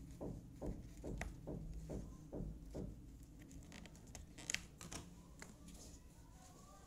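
Small clicks and taps of jigsaw puzzle pieces being handled and pressed into place, the sharpest about four and a half seconds in. A soft rhythmic thudding, two to three a second, runs under the first half and fades out about three seconds in.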